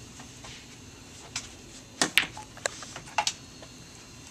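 Billiard balls clacking together on a pool table: about half a dozen sharp, irregular clicks, starting about a second in and ending shortly before the end.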